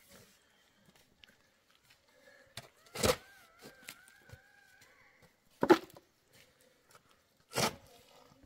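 Long-handled shovel driven into stony, dry soil: three sharp scraping strikes, spaced a couple of seconds apart, the middle one the loudest.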